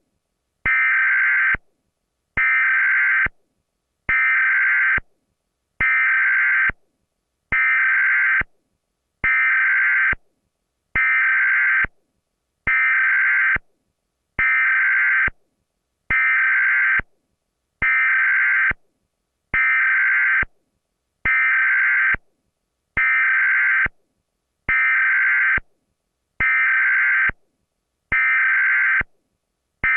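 Emergency Alert System digital header tones (SAME data bursts) repeating over and over: a buzzing data burst about a second long, then a short silent gap, roughly every 1.7 seconds.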